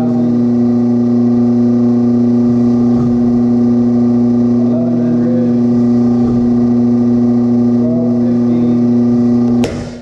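Steady motor hum of a pull-test rig holding the load on a carabiner, with a few faint creaks. Near the end a single loud, sharp crack: the Climbing Innovations carabiner breaking with its gate open, at about 1468 lb.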